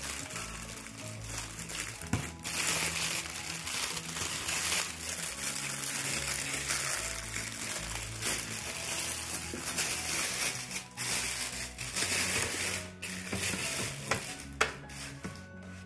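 Plastic bag and foam wrapping crinkling and rustling as they are pulled off a metal monitor stand arm, over background music. A single sharp tap comes near the end.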